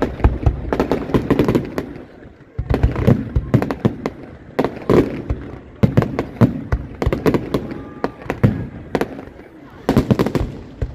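New Year fireworks going off in quick clusters of sharp bangs and crackles, with brief lulls about two seconds in and again near nine seconds.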